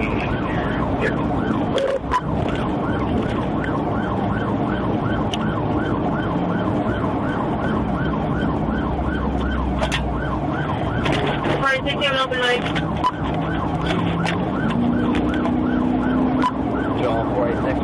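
Police car siren in a fast yelp, rising and falling about three times a second, heard from inside the pursuing patrol car; the pattern breaks off about two-thirds of the way through. The car's engine runs underneath and rises in pitch near the end as it speeds up.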